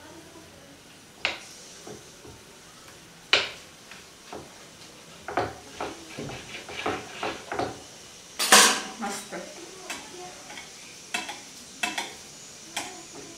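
A knife clicking and scraping against a plate while cutting a slab of set carrot burfi into pieces: a series of sharp clicks and knocks, sparse at first and then closer together, the loudest about eight and a half seconds in.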